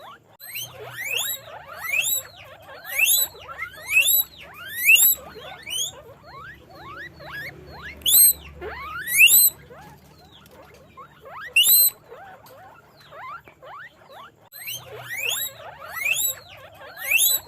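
Guinea pigs wheeking: loud, high squeals that sweep upward, repeated in quick clusters with quieter gaps between.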